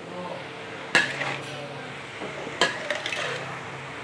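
Metal spatula stir-frying bean sprouts and vegetables in a large metal wok, scraping through the food and clanking sharply against the pan about a second in and again about two and a half seconds in.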